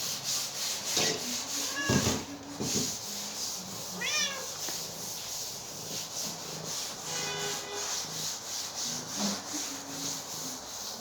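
Hungry cats meowing, three meows: a short one about two seconds in, one about four seconds in, and a longer, lower one around seven seconds in, over a steady, regularly repeating scratchy rubbing noise.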